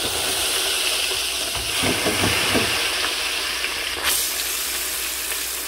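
Frozen crinkle-cut fries sizzling hard in a deep fryer's hot oil: a steady, loud hiss of rapid frying as the frozen potatoes hit the oil.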